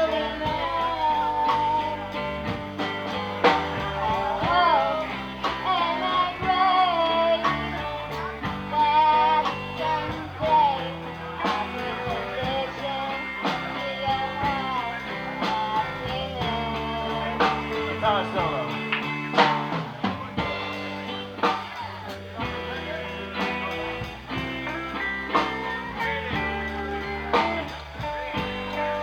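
Live song: electric guitar accompanying a singing voice, the voice most prominent in the first dozen seconds, with the guitar carrying on underneath throughout.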